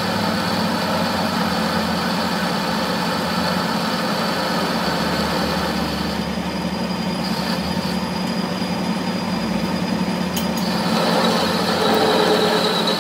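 Metal lathe running while its cutting tool turns down a steel axle shaft: a steady machine drone with a thin high whine over it, growing a little louder about eleven seconds in.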